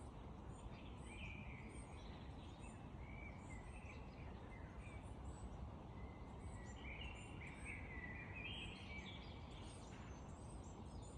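Faint birdsong: several small birds chirping and calling, busiest about seven to nine seconds in, over a low steady background rumble.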